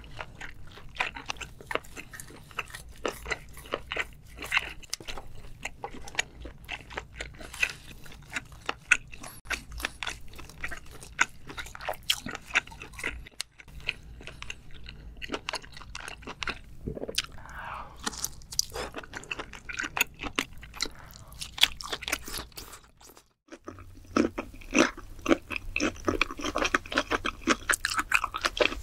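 Close-miked eating sounds: chewing and biting into sauced octopus, with many wet, sticky mouth clicks and smacks. After a short break about three-quarters of the way through, the chewing changes to raw shrimp, with denser, sharper clicks.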